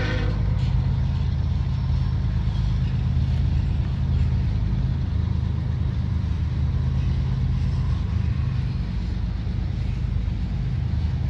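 Freight train of covered hopper cars rolling past with a steady low rumble.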